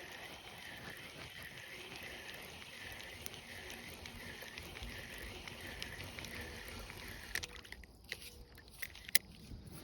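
A faint rhythmic animal call: a short rising-and-falling note repeated about one and a half times a second over a low rumble. The calling stops near the end, followed by a few sharp clicks.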